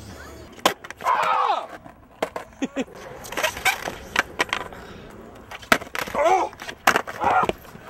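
Skateboard on concrete: wheels rolling, trucks grinding along a concrete ledge, and a string of sharp clacks from tail pops and landings. A few voices call out in between.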